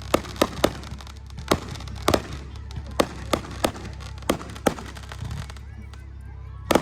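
Aerial fireworks going off: a rapid, irregular run of sharp bangs and cracks, a dozen or more in a few seconds, with a loud double bang near the end.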